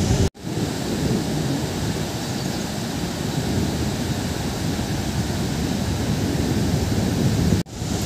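Waterfall rushing steadily, a loud even wash of falling water. The sound cuts out for an instant twice, shortly after the start and near the end.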